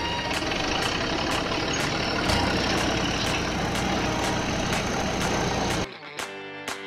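Steady engine-like mechanical running noise, with a faint ticking beat about twice a second over it. About six seconds in it cuts off abruptly to strummed guitar music.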